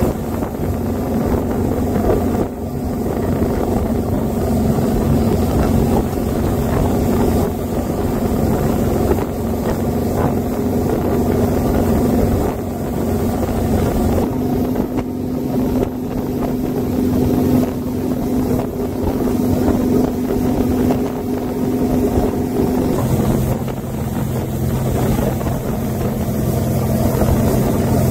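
Tow boat's engine running steadily at speed, with wind on the microphone. Its steady hum shifts to a lower note about two-thirds of the way through.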